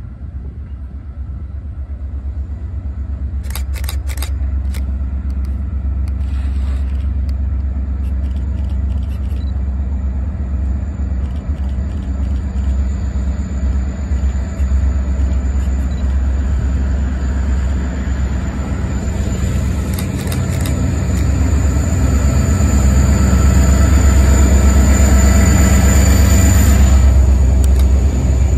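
Diesel locomotive approaching and passing underneath, its engine rumble building steadily and loudest near the end, with a steady high-pitched whine as it draws close.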